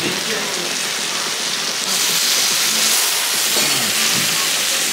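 Food sizzling on a hot tabletop grill plate, a steady hiss that grows louder about two seconds in as steam rises from the hot pan.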